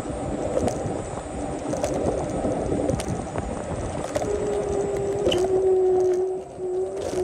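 Segway-Ninebot F40 electric scooter riding along: a steady rolling rumble with a sharp tick about once a second, and a steady motor whine that comes in a little over halfway through.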